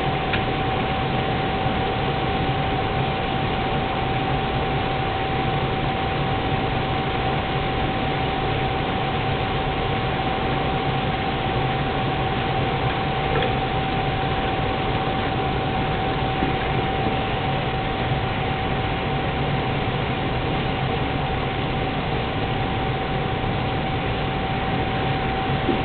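Propane turkey-fryer burner running steadily under the pot of oil: an even rush of flame noise with a constant thin tone throughout.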